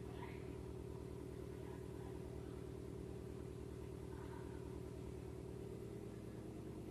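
Faint steady low hum in the room, with light scratching of a marker drawing on a whiteboard, briefly near the start and again about four seconds in.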